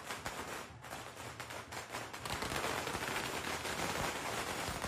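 Strings of firecrackers going off in rapid, dense crackling, growing thicker and louder about two seconds in.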